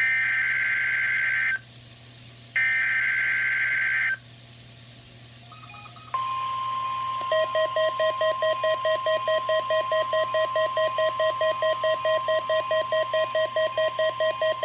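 NOAA Weather Radio Required Weekly Test: two bursts of warbling SAME header data, a second apart, then the steady 1050 Hz NOAA Weather Radio warning alarm tone. About a second after the tone starts, a pulsing beep about four times a second joins it.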